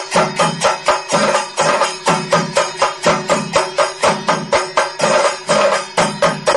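Kerala temple percussion ensemble, chenda drums and cymbals, playing a fast, even beat of about four strong strokes a second, with a steady held note underneath.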